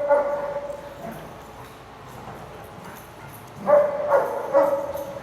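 A dog barking and yelping in play: a drawn-out high call fades over the first second, then three or four quick barks come about three and a half seconds in.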